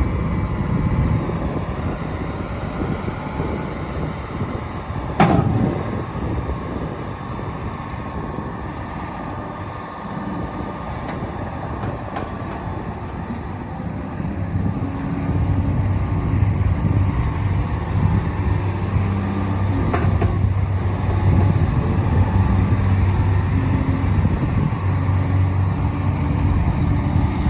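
Caterpillar 320CL hydraulic excavator's diesel engine running as the machine works, pulling harder from about halfway through. A sharp metallic knock comes about five seconds in and a lighter one around twenty seconds.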